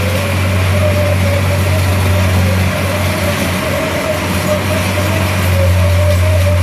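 Engine of a tracked home-moving crawler running steadily as it turns and moves a manufactured home section. A low hum carries through, with a higher wavering whine above it.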